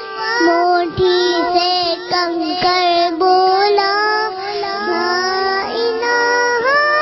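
A young girl singing a naat, a devotional Islamic song, in long held notes that bend and glide in pitch.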